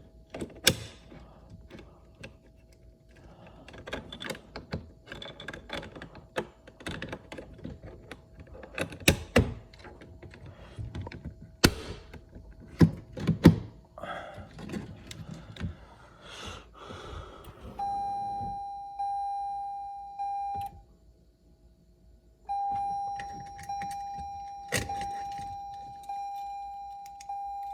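Plastic trim and parts clicking and knocking as the door-handle area is worked on, then the car's interior warning chime sounding in repeated dings about a second apart, stopping for a moment and starting again.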